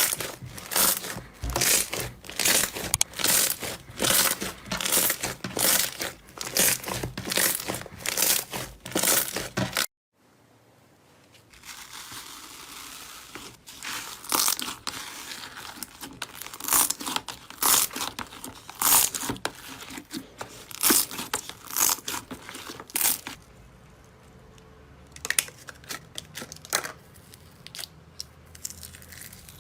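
Slime being squeezed and pressed by hand, giving crackling, crinkly pops about twice a second. About ten seconds in the sound breaks off briefly, then resumes as more irregular crackling that grows sparser and quieter toward the end.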